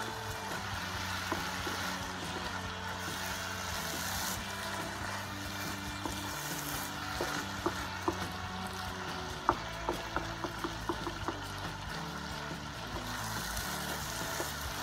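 Rice, shrimp and vegetables sizzling in a frying pan while a wooden spatula stirs them, with a run of sharp taps and scrapes of the spatula against the pan in the middle of the stretch.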